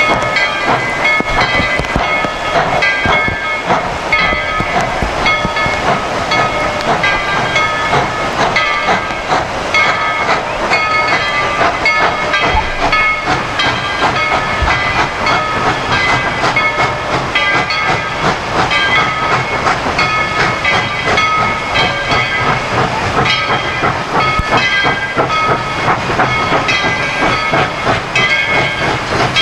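Steam train running, with steam hiss and several high steady squealing tones that break off and come back over and over.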